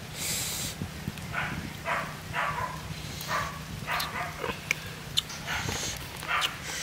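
A string of short animal calls coming every half second or so, with a few sharp clicks between them.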